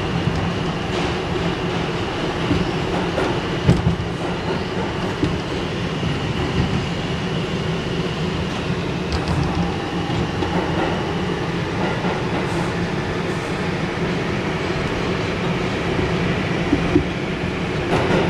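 New York City Subway 2 train running, heard from inside the car: a steady rumble of wheels on rail with a few sharp clacks scattered throughout.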